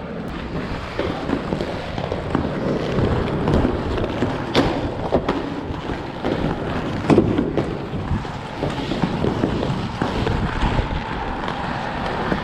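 Inline skate wheels rolling over pavement, with wind on the microphone and a few sharp clacks of skates landing or striking a rail, the loudest about four and a half and seven seconds in.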